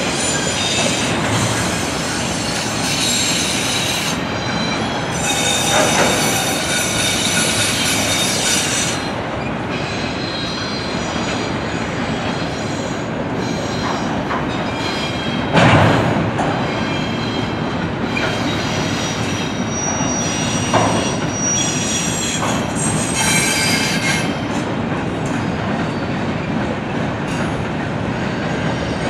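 Freight train of autorack and double-stack container cars rolling past: a steady rumble of steel wheels on rail with high-pitched wheel squeal coming and going. A single loud bang about halfway through.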